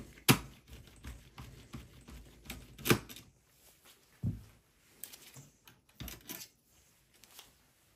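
Scattered sharp clicks and light knocks of a screwdriver and handling against a desktop PC's sheet-metal chassis as a screw is worked out; the loudest clicks come about a third of a second in and near three seconds.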